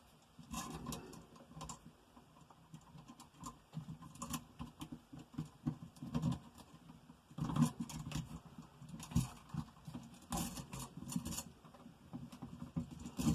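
Hands working electrical wires and connectors at an outlet box: irregular small clicks, taps and rustles as the wiring connections are made.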